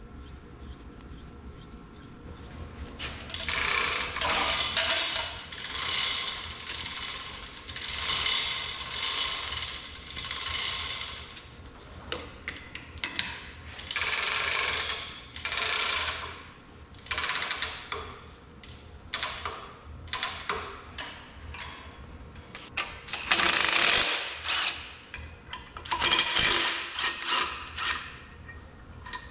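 Ratcheting, geared mechanical noise in repeated bursts of about a second, coming shorter and more broken in the second half. It comes from rigging and turning an engine block with an overhead chain hoist and a cordless drill on the engine stand.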